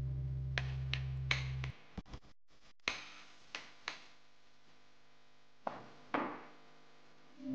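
Metal spoon tapping and scraping against a ceramic bowl as crushed tofu is stirred: about ten short, irregular clinks. Background music plays under the first taps and stops about two seconds in.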